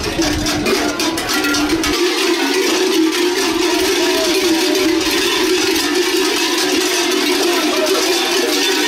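Folk music playing: a steady held chord with a melody line over it.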